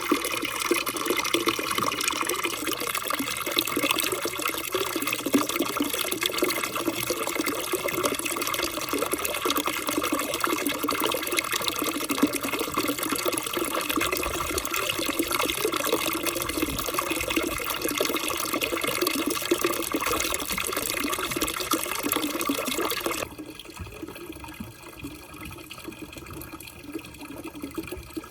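Water running and splashing steadily through a water marble run, carrying floating plastic balls; about 23 seconds in it suddenly becomes much quieter.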